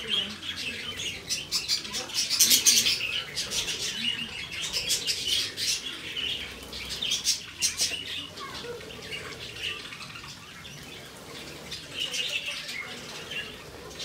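A flock of budgerigars chattering with dense warbling chirps, with bursts of wing flutter as birds fly about. The chatter is loudest about two to three seconds in and thins out in the second half.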